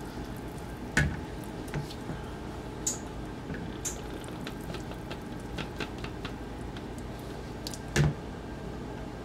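Wet cornbread dressing mixture sliding and plopping out of a stainless steel mixing bowl into an enamel roasting pan, with scattered small clicks and two louder knocks, one about a second in and one near the end.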